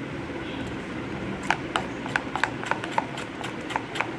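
Steel spoon beating pancake batter in a plate, first a soft stirring, then, from about a second and a half in, the spoon clicking against the plate about three to four times a second.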